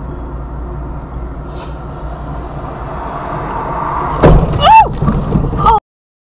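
Engine and road noise inside a moving car's cabin, then about four seconds in the loud bang of a collision with another car, followed by a short high-pitched sound that rises and falls and a few more knocks. The sound cuts off suddenly near the end.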